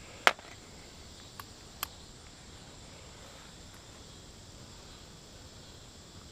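A single sharp handgun shot about a third of a second in, followed by two faint clicks about a second later. Behind it runs a steady, high insect chorus of crickets.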